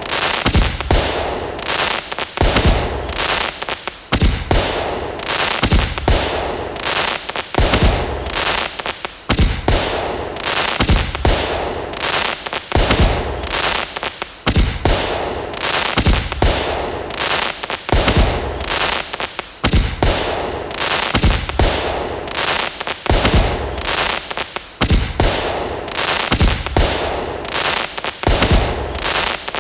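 Fireworks sound effect: a repeating cycle of hissing and popping with sharp bangs, a new burst of bangs about every one and a half to two seconds. Between the bangs comes a crackling hiss with faint falling whistles.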